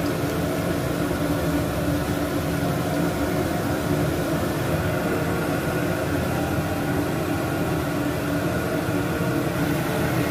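Steady kitchen noise while battered pieces fry in oil in a frying pan: an even hiss with a constant hum underneath.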